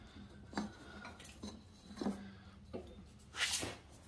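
Light knocks and clinks as a rubber V-belt and hands touch the steel mower deck and its pulleys while the belt is routed around them, about one knock every half to one second. A short rush of noise comes near the end.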